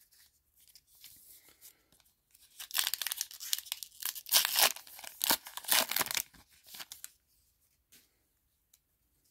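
The crimped foil wrapper of a 2023 Topps Heritage baseball card pack being torn open by hand, crackling and crinkling. After a few seconds of faint rustling, the tearing and crackle come in loud for about four seconds, then fade to light handling.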